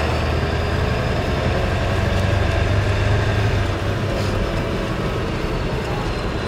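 1997 7.3 L Powerstroke turbo-diesel V8 running in a 1972 Ford F250 as the truck drives slowly, heard from inside the cab along with drivetrain and road noise. The deep low rumble eases about four seconds in.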